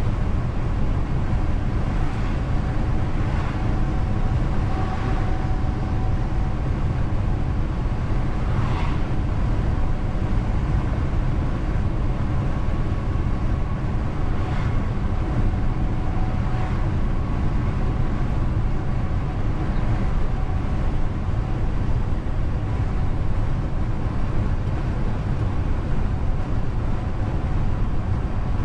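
DAF XF truck driving on the road: a steady low rumble of engine and tyres.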